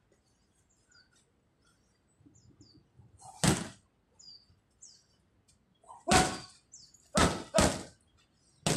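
Gloved strikes landing on Thai pads: one sharp smack about a third of the way in, then a spaced series of four more toward the end, two of them in quick succession.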